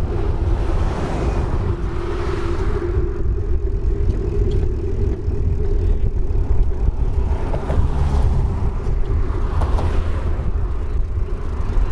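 Cars passing on the road alongside, over a steady low wind rumble on the microphone of a moving bicycle. Passing traffic swells up about a second in and again near the end.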